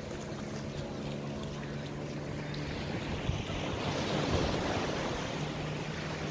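Surf breaking and washing up a sandy beach, one wave surging loudest about four seconds in, with wind buffeting the microphone. Under it runs a steady low engine drone from a small boat offshore.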